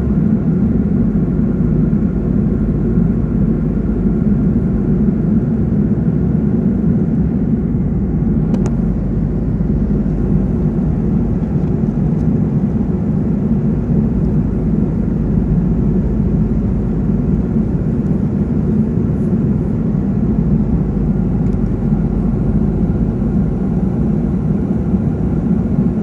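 Steady engine drone with no change in pitch or level.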